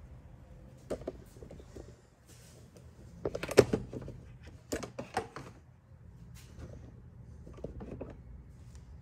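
Light knocks and clatters of things being handled, in a few short clusters, the loudest about three and a half seconds in.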